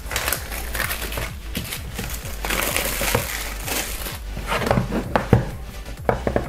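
Clear plastic shrink-wrap film being peeled off a cardboard phone box and crumpled, a dense crackling crinkle. Near the end come a few light knocks as the bare box is handled.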